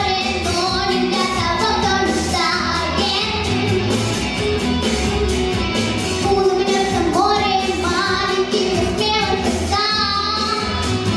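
A young female voice singing a pop song over a backing track with drums and bass.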